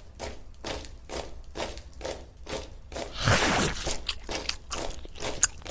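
Handmade mini tractor driving through mud: crunching ticks about three a second, then a louder stretch of crunching and scraping about three seconds in.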